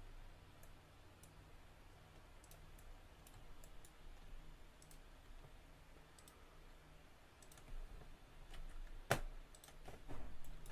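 Faint, scattered clicks of a computer mouse and keyboard being used at a desk, with one louder click about nine seconds in, over a low steady hum.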